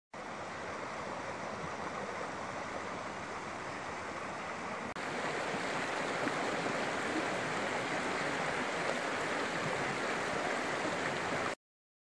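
Snowmelt creek rushing and splashing over rocks, a steady rush of water. There is a cut about five seconds in, after which it is a little louder.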